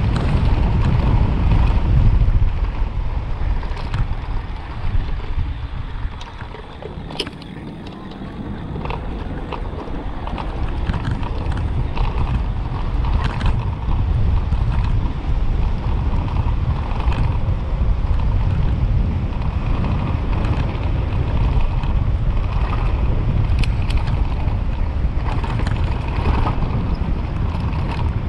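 Wind rushing over the microphone and tyres rumbling on brick pavers as an electric bicycle cruises at 20 to 30 mph. The noise eases for a few seconds about a quarter of the way through as the bike slows, then builds again.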